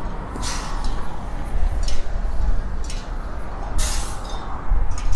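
City street traffic: a steady low rumble of passing vehicles, with several short hissing sounds, the loudest about four seconds in.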